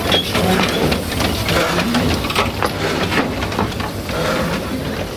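Narrow-gauge steam locomotive rolling slowly past at close range while shunting, its wheels and running gear clanking and knocking over a low rumble.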